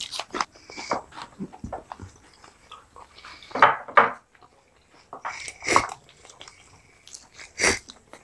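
People chewing fried chicken lollipops with wet mouth smacks and finger-licking, in irregular short bursts with a few louder smacks in the middle and near the end.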